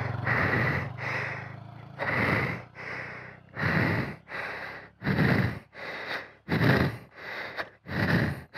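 A person panting hard: loud, rasping breaths coming about every second and a half. A motorcycle engine idles low underneath for the first couple of seconds, then fades out.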